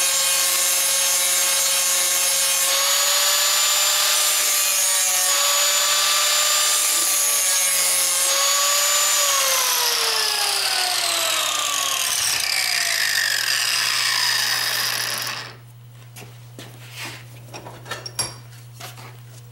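Electric angle grinder running with a steady whine while grinding a steel lawnmower blade held in a vise. About nine seconds in, its whine falls in pitch as it winds down. Near the end the loud noise stops abruptly, leaving a low hum and a few light clanks.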